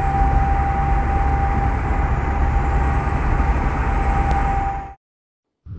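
Peterbilt 389 semi truck's diesel engine running with a loud low rumble and a steady high turbo whistle. The sound cuts off suddenly about five seconds in, and a brief whoosh begins near the end.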